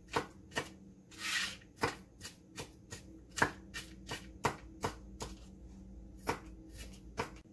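Chef's knife mincing garlic on a plastic cutting board: a steady run of knife taps, about two to three a second, with a brief scrape about a second in and a short pause near the end.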